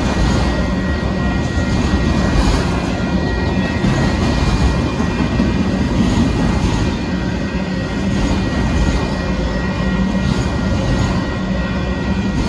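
Union Pacific autorack freight train rolling steadily past at a grade crossing: a loud, continuous noise of steel wheels on the rails.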